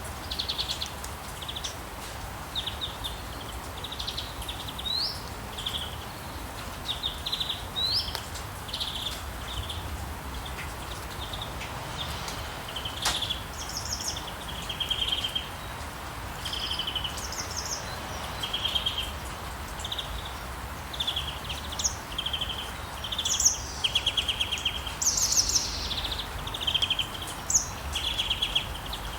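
Steady rain with many birds chirping and trilling over it, in short repeated phrases, some with quick rising notes.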